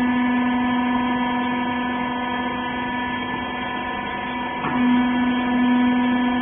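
Rag baler machine running with a steady mechanical hum, most likely its hydraulic pump motor. There is a brief wobble in pitch nearly five seconds in, after which it runs a little louder.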